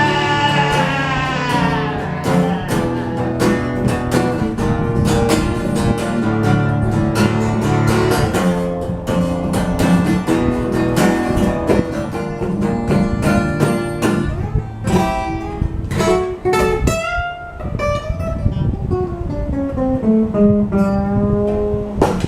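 Acoustic guitar picked and strummed in an instrumental break of an old-time folk tune, ringing notes, closing on a run of notes stepping down in pitch.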